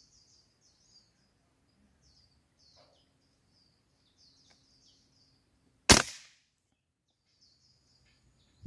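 Small birds chirping in short, high notes, then about six seconds in a single sharp shot from a scoped rifle that dies away quickly.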